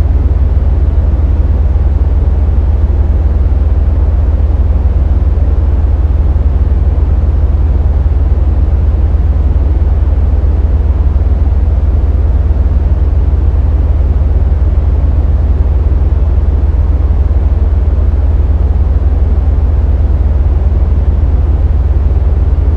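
Steady synthesized rumbling noise with very heavy deep bass, made on an Access Virus TI synthesizer to mask city noise. It runs loud and unchanging, with much less in the highs.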